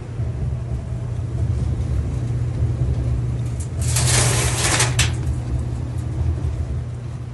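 Whirlpool vented electric dryer running with a steady low rumble, and about four seconds in a loud rush of noise lasting about a second.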